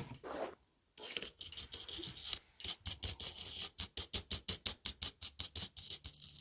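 Rapid back-and-forth scrubbing on a tablet's circuit board around the USB-C charge port, several strokes a second, starting about a second in. It is cleaning off debris that could cause a short circuit.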